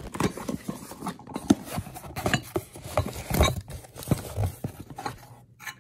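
Cardboard shipping box being opened and unpacked by hand: irregular rustling, scraping and crinkling with light knocks.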